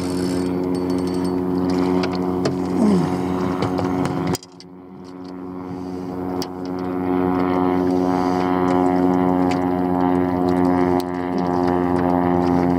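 Boat motor running steadily, dropping away abruptly about four seconds in and building back up over the next couple of seconds.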